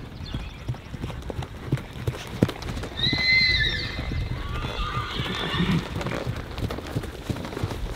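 Hooves of several horses and ponies striking a sand arena in uneven overlapping steps. About three seconds in, a horse whinnies in a high call, followed by softer whinnying.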